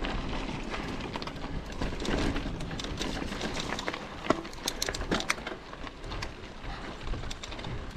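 Mountain bike riding over a rough, stony trail: a steady crunch of tyres with scattered sharp clicks and rattles.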